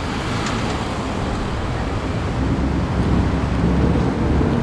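Ford Mustang with an X-pipe exhaust pulling away at low speed, a low exhaust rumble that grows a little louder over the second half.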